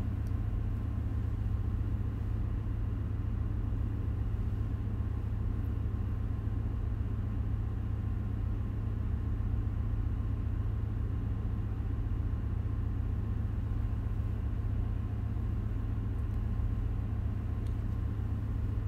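Steady low rumble of ship engine-room machinery, even throughout, with a faint steady hum above it.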